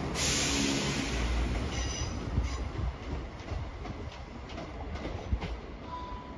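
Class 170 diesel multiple unit running out of the station, its rumble fading as it draws away, with brief high wheel squeal about two seconds in.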